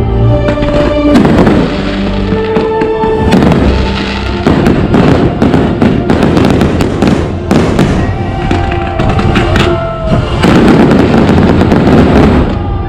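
Fireworks bursting and crackling in quick succession over music playing alongside.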